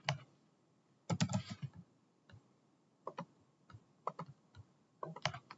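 Irregular clicking of a computer mouse and keyboard, with a quick run of clicks a little after a second in and single clicks scattered through the rest.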